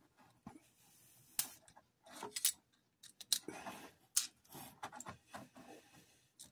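Scattered light clicks and taps of a Lionel 671 toy steam locomotive and its small parts being handled.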